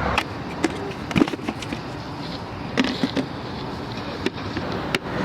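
Scattered light clicks and knocks of hands handling parts in a car, checking a fuse, over a steady background noise.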